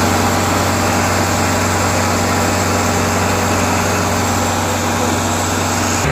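Tractor's diesel engine running at a steady, unchanging speed, a loud low hum that holds one pitch.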